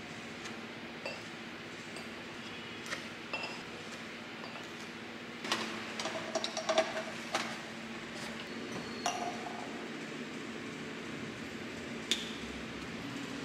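Glass syrup bottles and other kitchenware being handled on a countertop: scattered light taps and clinks, some ringing briefly, with a busier run of clinks in the middle, over a faint steady hum.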